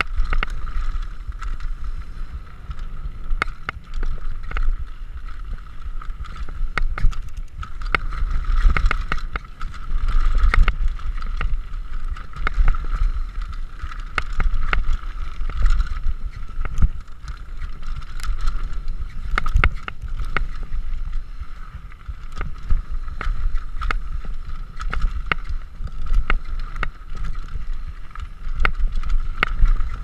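Downhill mountain bike rolling fast over a rough dirt trail: wind buffeting the microphone as a low rumble, a steady high buzz, and frequent sharp rattles and knocks as the bike hits bumps and stones.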